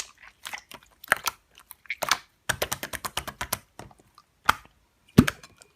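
Slime being squished and pressed, air pockets popping in irregular sharp clicks and crackles, a quick dense run of them around the middle and the loudest pop near the end.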